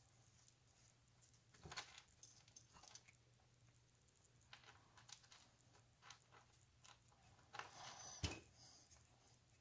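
Faint, scattered clicks and light knocks of tools and metal engine parts being handled during assembly of the engine's bottom end. The loudest knock comes near the end, all over a steady low electrical hum.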